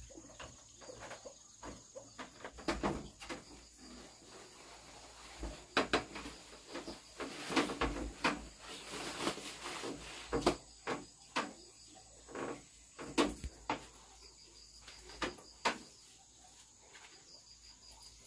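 Irregular knocks and thuds of someone moving about inside a wooden plank house: steps on the boards, a door, clothes being pulled from wall hooks and a jacket rustling on. A steady high insect drone runs behind.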